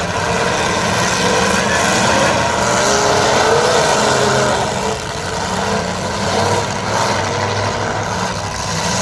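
Demolition derby cars' engines running and revving together, a loud, continuous engine noise with the pitch rising and falling.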